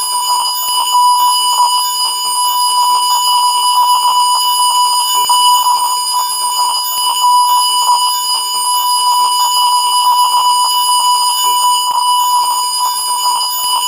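Steady 1 kHz colour-bars test tone, a single continuous beep held without a break, with faint higher overtones above it.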